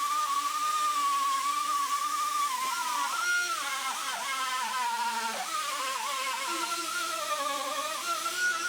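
Handheld electric drill driving a small wire wheel against the steel door, its motor whine dipping and wavering as the wheel bears on the metal.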